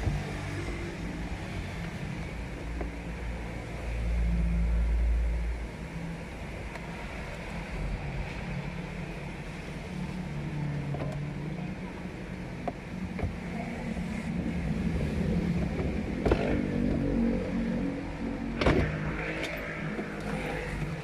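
A motor vehicle engine running steadily. It swells louder for a moment about four seconds in, and two sharp knocks come near the end.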